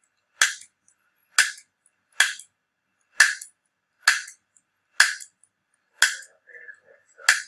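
Handheld chiropractic adjusting instrument firing against the spine: eight sharp snaps, about one a second, each dying away quickly.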